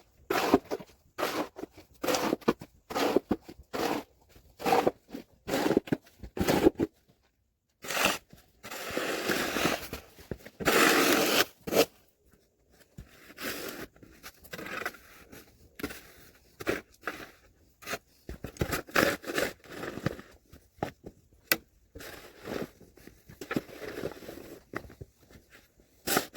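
Crunching footsteps in snow, about two steps a second, with a few longer scraping noises in the middle.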